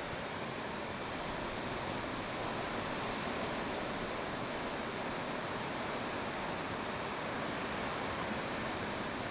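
Steady roar of ocean surf breaking, an even rushing noise with no separate crashes standing out.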